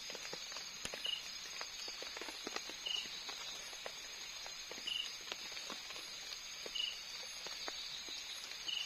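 Night forest ambience: insects keeping up a steady high chorus, with a short high chirp repeating about every two seconds. Scattered light ticks and taps run through it.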